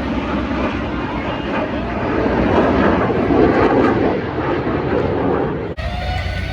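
Jet noise from a Boeing EA-18G Growler's twin turbofan engines, swelling to its loudest about halfway through as the jet passes, then easing off. The sound cuts off abruptly near the end.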